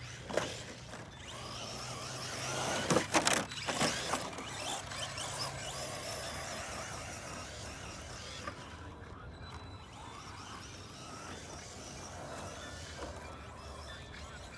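Radio-controlled car driving, with its motor running steadily and a cluster of sharp knocks, like hits or tumbles, about three to four seconds in.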